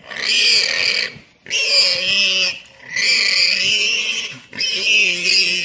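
Warthog squealing in distress as a leopard holds it: four loud, long, high-pitched squeals of about a second each, with short breaks between.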